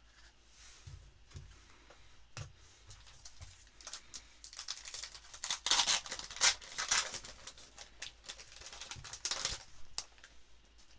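Foil trading-card pack being torn open by hand, a crinkling rip that is loudest about halfway through, preceded by a few light taps of cards being handled.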